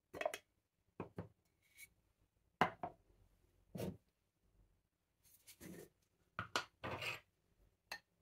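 A glass spice jar and its bamboo lid being handled and set down on a stone countertop: a string of short knocks and scrapes, roughly a second apart.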